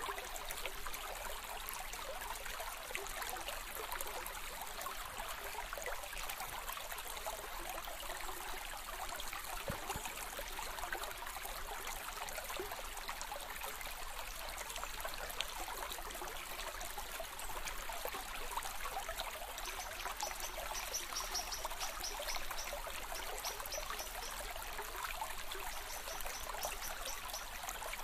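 River water flowing and trickling, a steady, even rush. From about twenty seconds in, short runs of fast, high ticks repeat several times over it.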